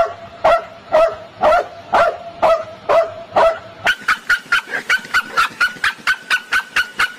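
A dog barking in an even series, about two barks a second. About four seconds in, the barking turns faster and higher-pitched, about three barks a second.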